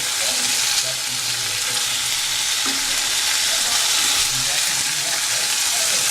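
Oil sizzling steadily in a pan of onion-tomato masala as boiled egg pieces are turned in it.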